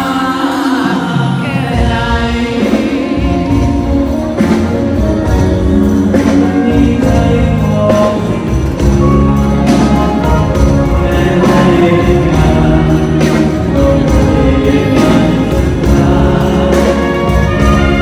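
Loud live music with a singer's voice over a band, played through a concert sound system.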